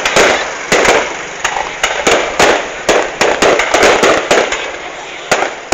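Fireworks going off in a rapid, irregular string of sharp bangs, a few each second, with crackling noise between them.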